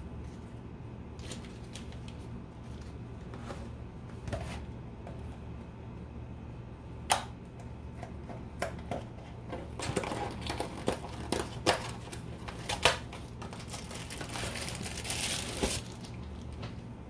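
Paper wrapper being crumpled and handled, with scattered sharp clicks and knocks. The crinkling and clicks are busiest in the second half, and a steady low hum runs underneath.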